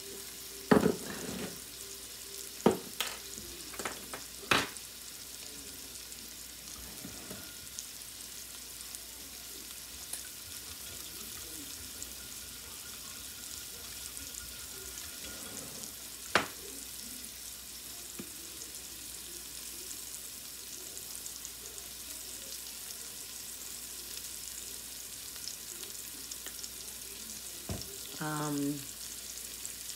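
Salmon fillets frying in a pan, sizzling steadily. A few sharp clicks or knocks come in the first few seconds and once more about halfway through.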